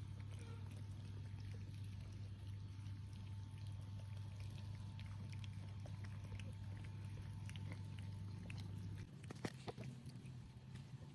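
A cat eating, faint small clicks of chewing, over a steady low electrical hum that stops about nine seconds in.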